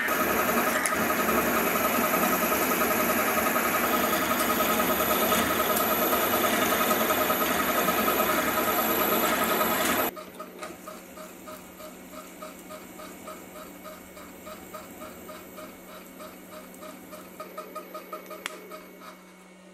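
Milling machine spindle driving a drill through a steel block, running loud and steady while it cuts. About ten seconds in the sound drops suddenly to a quieter, slower run with an even pulsing and a low hum as the hole is bored out and reamed.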